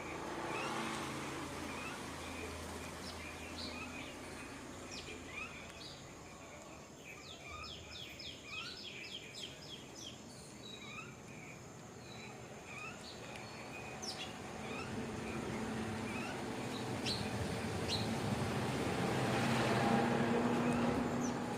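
Small birds chirping repeatedly in short calls, with a quick run of about ten rapid calls some seven seconds in, over a steady background hum and hiss. A broad noise swells louder near the end.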